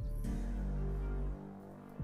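Background music with held notes over a steady bass; the bass drops away near the end.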